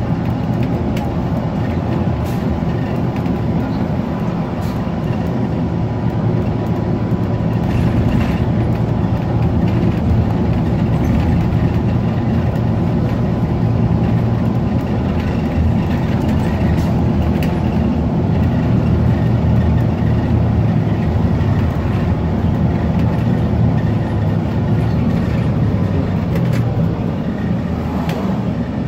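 Cummins Westport ISL-G natural-gas engine of a New Flyer XN40 transit bus idling steadily at its rear, a constant low drone.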